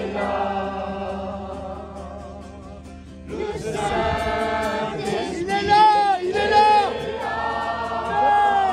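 A crowd singing a French worship song together, with an acoustic guitar strumming underneath. The singing eases off a little, then comes back stronger about three seconds in.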